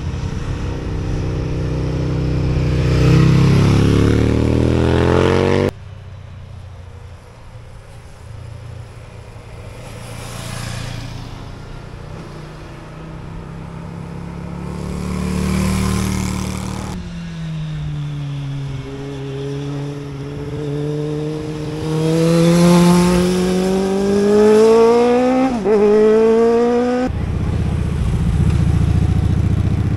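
Motorcycle engines passing through a tight bend one after another, accelerating with rising pitch. Near the end, one engine climbs in pitch for several seconds and then drops abruptly with a gear change.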